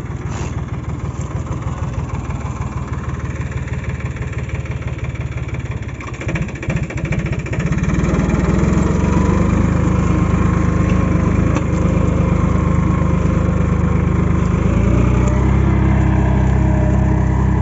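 Mahindra 265 DI tractor's three-cylinder diesel engine running steadily while pulling a tine cultivator through the soil; it gets louder about eight seconds in.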